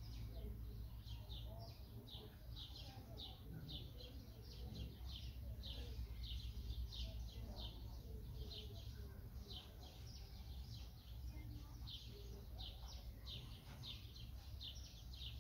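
A bird chirping over and over, short high chirps about two to three a second, over a low steady rumble.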